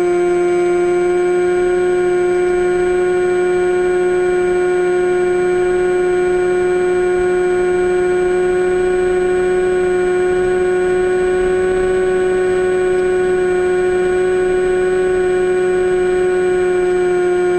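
AXN Floater Jet's electric motor and propeller running at a steady throttle, a constant whine that holds one pitch throughout.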